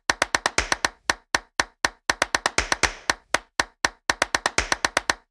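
A quick run of sharp percussive clicks, about four to eight a second in an uneven rhythm, with dead silence between them: a produced percussion or sound-effect track rather than the workshop's own sound.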